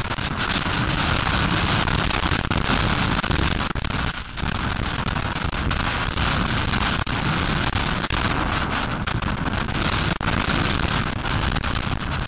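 Heavy wind buffeting on an on-board action-camera microphone mixed with a Suzuki RM250 two-stroke motocross engine at race speed, harsh and full of short crackles, with a brief dip about four seconds in.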